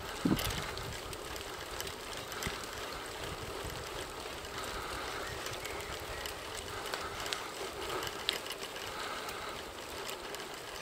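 Bicycle rolling along an asphalt lane: steady tyre and wind noise with scattered light clicks and rattles from the bike, and a sharper knock just after the start.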